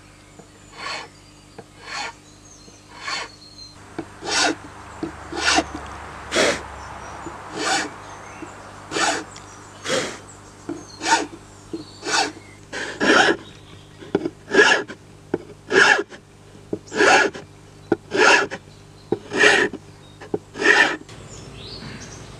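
Steel hand file rasping across a hickory tomahawk handle, cutting a decorative cross pattern into the wood: about one stroke a second, stopping shortly before the end.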